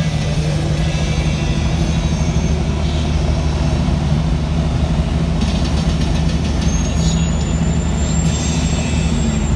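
Kenworth W900L semi truck's diesel engine running steadily at cruising speed, heard inside the cab. A thin high whine comes in near the end.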